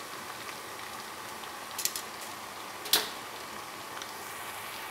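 Chicken pieces deep-frying in hot oil in a wok, a steady sizzling hiss. A few sharp clicks of metal tongs against a wire strainer come as pieces are lifted out, the loudest about three seconds in.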